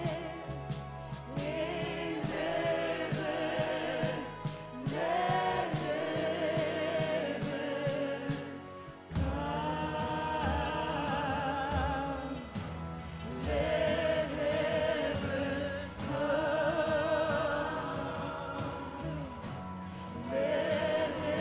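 Gospel worship music: singers holding long, wavering notes over a band. The low accompaniment fills in fuller about nine seconds in.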